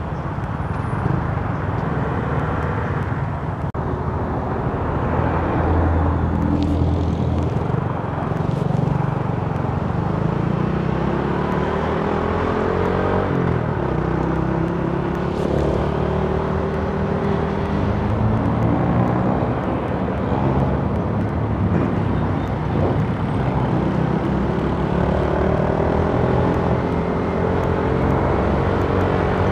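Small motorcycle's engine running while riding in traffic, its pitch rising several times as the bike speeds up, over a steady rush of wind and road noise.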